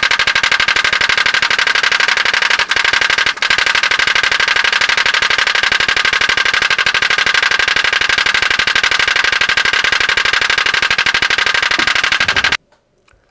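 PP4V pop-pop (putt-putt) boat engine running: steam pulses flex its diaphragm, giving a loud, fast, even putt-putt that cuts off suddenly near the end.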